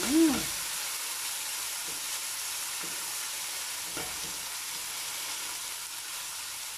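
Chopped onions and cherry tomatoes sizzling as they fry in oil in a stainless steel pot, stirred with a wooden spoon that knocks lightly against the pot a couple of times. A brief hummed voice sound right at the start is the loudest moment.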